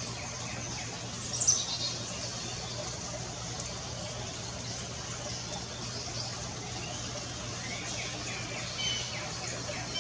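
Outdoor ambience with wild birds calling: a sharp, high, falling chirp about a second and a half in, and a quick run of short chirps near the end, over a steady background hiss and a low hum.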